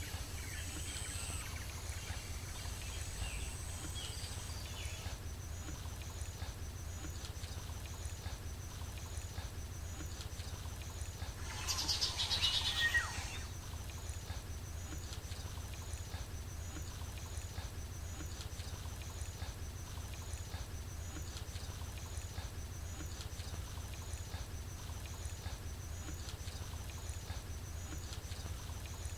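Outdoor ambience: a steady low rumble, with birds calling in the first few seconds and a faint high chirp repeating about once a second. About twelve seconds in there is a brief, louder noisy burst.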